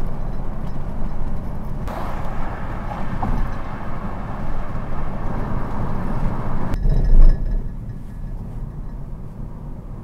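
Road and engine noise heard inside a moving car's cabin at motorway speed, a steady low rumble. A brief loud low thump comes about seven seconds in, and the noise is quieter after it.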